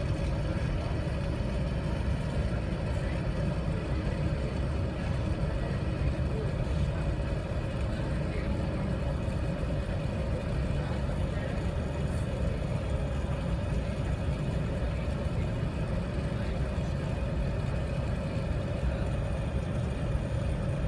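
Steady cabin noise aboard an Airbus A380 on the upper deck: a constant low rumble from the engines and passing air, with an even hum above it.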